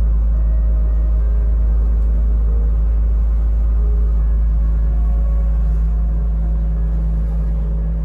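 Nordhavn 40 trawler's diesel engine running steadily underway, a loud low rumble heard inside the pilothouse.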